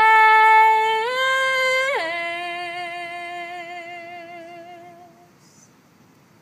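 A solo singing voice holding one long note of a slow song, stepping up in pitch about a second in, dropping at about two seconds, then held with a gentle vibrato and fading out after about five seconds.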